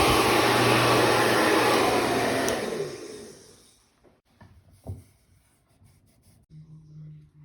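Handheld blow dryer running on high, blowing steadily, then switched off about two and a half seconds in, its motor winding down over the next second or so.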